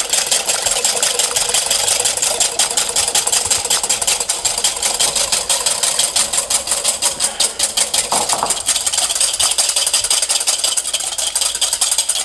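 Stainless steel balloon whisk beating egg whites in a ceramic bowl: a fast, steady clatter of the wires against the bowl as the whites are whipped to a froth.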